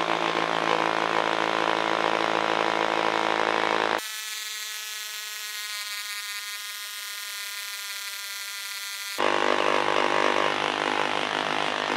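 Milwaukee M12 Surge hydraulic impact driver running continuously under load, boring a spade bit into pressure-treated lumber: a steady buzzing drone. Its tone changes abruptly about four seconds in and switches back a little after nine seconds.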